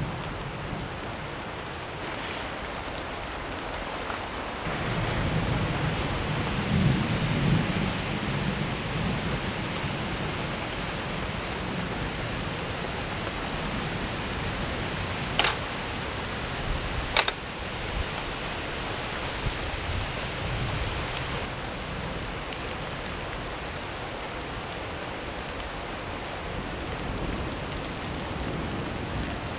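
Steady rain during a thunderstorm, with a low rumble of thunder that swells about five seconds in and fades over the next few seconds. Two sharp clicks come midway, about two seconds apart.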